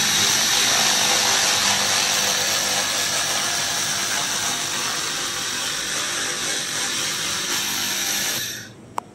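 A 1500 W handheld fiber laser head firing at a rusty steel plate: a loud, steady hiss and crackle that cuts off sharply near the end. A single short click follows.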